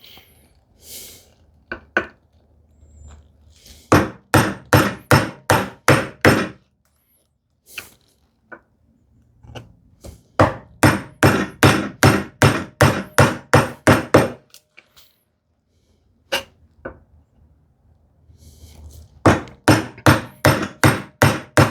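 A bevel-edge chisel being struck in quick runs of blows, about three to four a second, with a few single knocks between, as it chops a mortise into a wooden leg.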